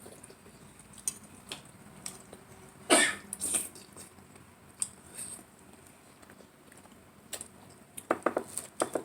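Eating sounds of someone working through a plate of spaghetti: scattered light mouth smacks and small clicks, with a short cough about three seconds in and a few quick cutlery clicks near the end.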